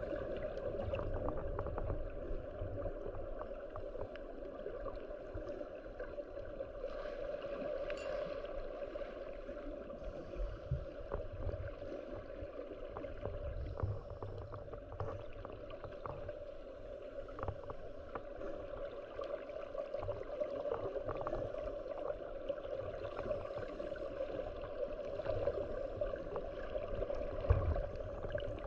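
Muffled underwater ambience picked up by a camera in a waterproof housing: a steady hiss with a constant hum, scattered small clicks and occasional low thumps.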